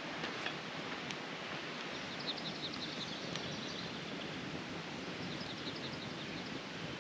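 Steady rush of a flowing creek, with a small bird giving two quick series of rapid high chirps about two and five seconds in, and a couple of sharp crackles from the burning wood campfire.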